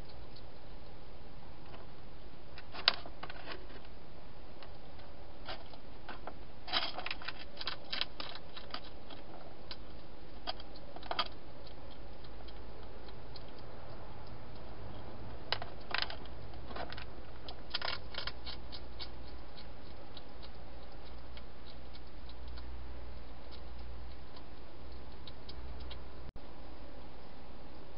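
Wild hedgehog feeding at a bowl inside a clear plastic feeding box: irregular clusters of small sharp clicks over a steady hiss.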